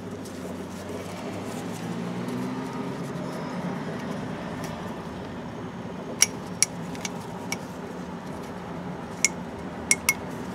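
Oil filter cartridge and its housing cap being handled and fitted together by gloved hands, giving several sharp light clicks and clinks in the second half. A steady low hum is underneath.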